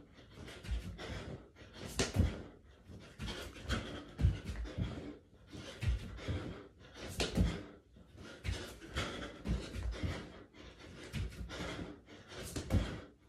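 A man's heavy, rapid panting as he does burpees, one hard breath after another. Dull thuds of his hands and feet landing on the floor come every second or two.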